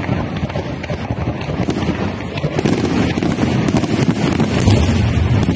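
Fireworks display going off in a dense, continuous barrage of bangs and crackling, with deeper booms growing stronger near the end.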